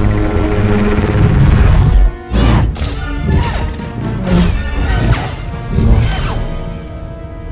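Orchestral film score, then from about two seconds in a quick series of lightsaber clashes and swishing swings, about eight sharp hits in four seconds, over the music.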